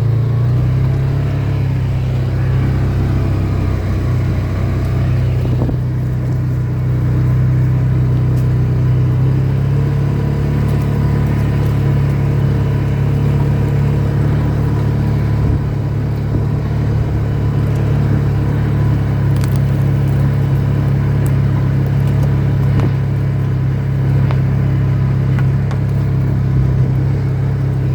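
Steady engine and running noise of a moving vehicle, heard from on board: an even low drone that holds throughout.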